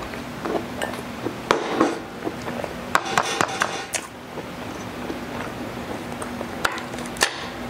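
Spoon scraping and clinking against the inside of a paper food cup as the last of the goto (rice porridge) is scooped out, in scattered bursts, with a faint steady hum underneath.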